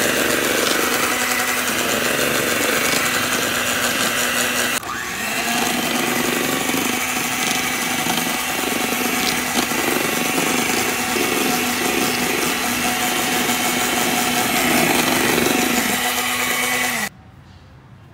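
Hinano electric hand mixer running steadily, its beaters whipping egg whites in a stainless steel bowl. The sound breaks off briefly about five seconds in, and the motor cuts off suddenly about a second before the end.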